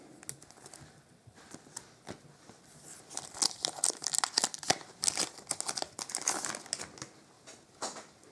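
Trading-card pack wrapper and plastic card sleeves crinkling in the hands, a rapid crackle that is sparse at first and densest from about three to seven seconds in.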